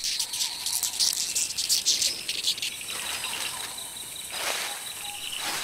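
Night-time rainforest insect chorus: many insects chirping and trilling in quick, high-pitched trains. A soft wash of noise rises under it for a second or two about three seconds in.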